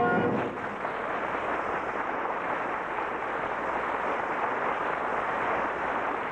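The last brass-and-timpani chord of an orchestral music sting ends within the first half second. After it comes a steady hiss and rumble of surface noise from a 33⅓ rpm transcription disc.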